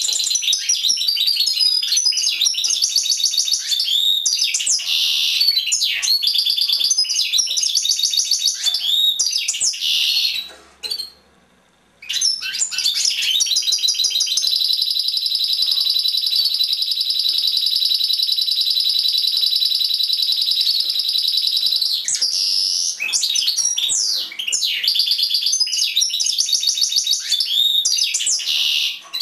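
European goldfinch singing: rapid, varied twittering phrases, a break of a second or so about a third of the way in, then one long even trill lasting around nine seconds before the quick twittering returns.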